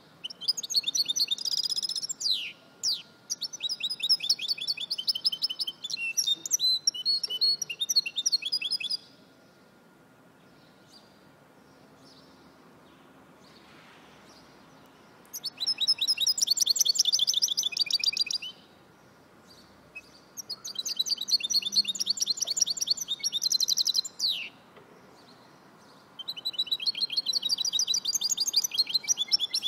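Goldfinch × canary hybrid (goldfinch mule) singing: long, fast trilling phrases of several seconds each, some ending in a falling note, with a pause of about six seconds in the middle.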